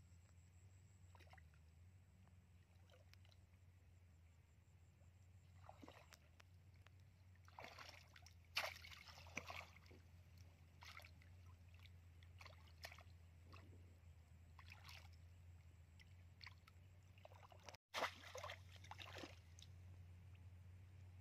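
Shallow muddy water splashing and sloshing in short bursts as a woven bamboo plunge-basket fish trap is pushed down into it and lifted, loudest about a third of the way in and again near the end. A steady low hum runs underneath.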